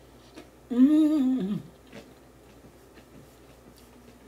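A woman's closed-mouth hummed "mmm" while chewing food, about a second long, holding its pitch and then sliding down at the end. Faint small clicks of chewing follow.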